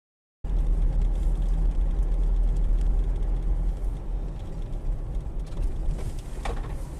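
Steady low rumble of a moving car's engine and tyres, picked up by a dashcam inside the cabin, starting abruptly about half a second in.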